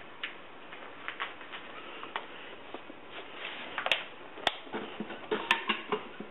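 Small clicks, taps and light knocks of things being handled on a wooden workbench. They grow busier in the second half, with a few sharp clicks.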